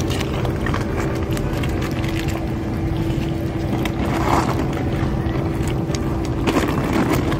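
Kittens and a cat eating wet food from a metal dish, with scattered short chewing clicks. Under them runs a steady low motor-like hum with one constant tone.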